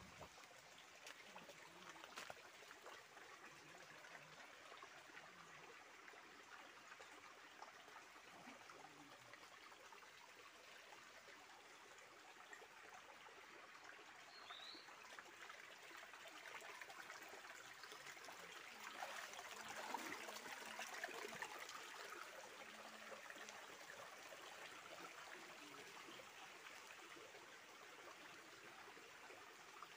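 Small forest stream trickling over stones, faint and steady, a little louder for a few seconds past the middle. A single short, high rising chirp about halfway through.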